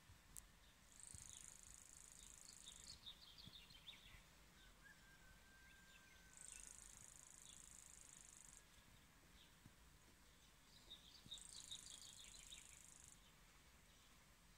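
Faint countryside ambience: a high, buzzing trill comes three times, each about two seconds long, with scattered short chirps around each trill.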